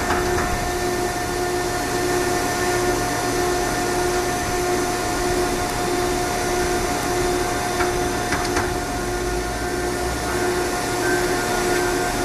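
Manure baler machinery running steadily: an even mechanical hum with a tone that pulses about one and a half times a second, and a few faint clicks.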